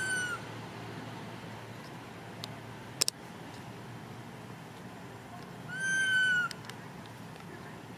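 A little monkey crying: two high, arched cries, a short one at the start and a longer one about six seconds in. There is a sharp click about three seconds in.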